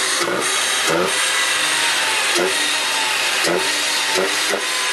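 Chevrolet Corsa engine idling and revved in about six quick throttle blips, pulling freely after its cam timing was reset; the mechanic says it seems to be fixed.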